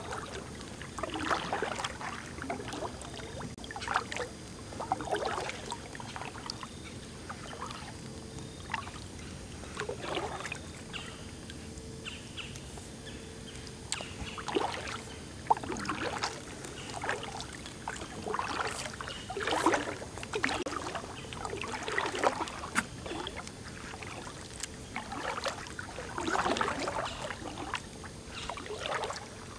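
Kayak paddle strokes in calm river water: short, irregular splashing swishes every second or two.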